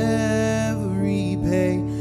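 A man singing a slow hymn into a microphone, holding long notes over steady instrumental accompaniment.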